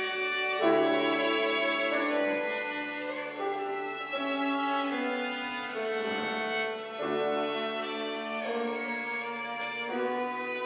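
A piano trio of violin, cello and piano playing classical chamber music: the violin carries held notes over a low sustained cello line, with the notes changing every second or so.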